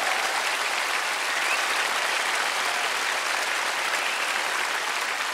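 Large theatre audience applauding, the clapping slowly tapering off.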